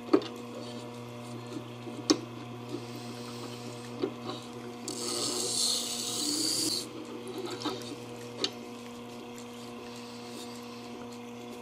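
Tormek wet grinder running with a steady low motor hum while a plane iron is worked on its stone. There are several light clicks and knocks from the blade and jig, and a louder scraping hiss of about two seconds around the middle.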